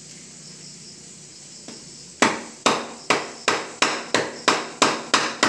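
Homemade wooden mallet knocking on a bunch of green bananas, about three sharp blows a second starting about two seconds in, to break the hands of bananas off the stalk.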